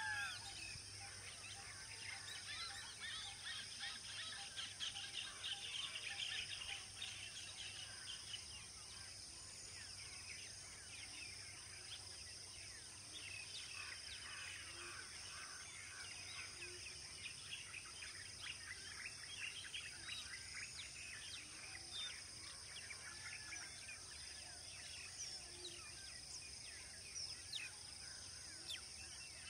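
A dense chorus of small birds chirping and calling, busiest in the first few seconds, over a steady high-pitched drone.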